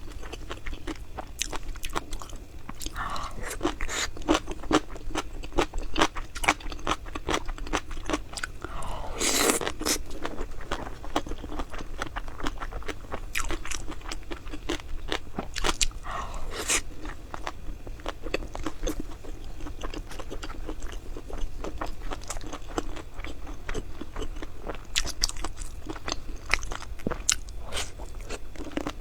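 A person eating close to the microphone: crunchy bites and chewing, with many quick irregular crackles and a few louder, longer crunches about 3, 10 and 17 seconds in.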